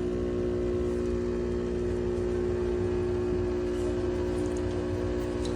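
Espresso machine's pump running with a steady hum while brewing a shot into two cups. The hum switched on abruptly just before and holds steady.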